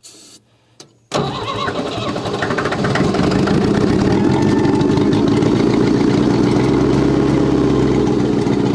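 An old engine fires about a second in, picks up speed over the next couple of seconds and settles into steady running.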